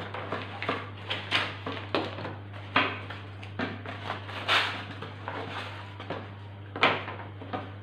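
Foam and wooden model aircraft parts being handled and set down on a wooden table: a scattered series of light knocks and clatters, with a steady low hum underneath.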